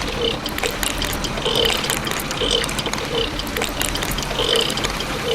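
Mechanical clicking and rattling, with short bursts of sound repeating every half second to a second.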